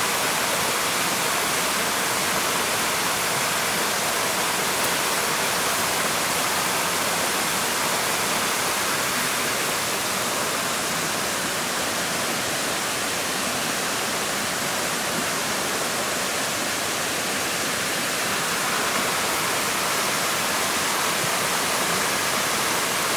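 A forest stream rushing, a steady even wash of water noise.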